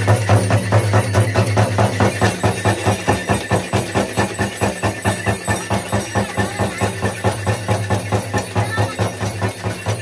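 Nepali shaman's dhyangro frame drum beaten fast and steadily, about five strokes a second, with the brass bells on his costume jingling along as he dances in trance.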